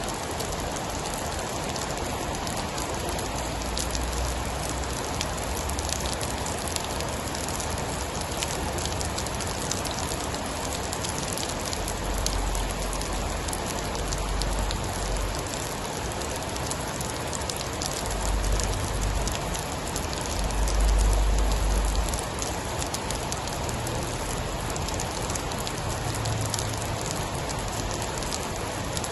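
Steady heavy rain falling, a dense hiss with many fine drop ticks. Deep low rumbles swell under it several times, the strongest about two-thirds of the way through.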